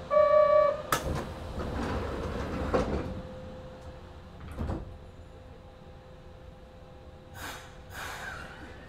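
Passenger doors of a Kobe Municipal Subway 1000 series train closing at a station: a short chime, then the sliding doors shut with a loud knock about a second in. Smaller knocks follow, and near the end there are two short hisses.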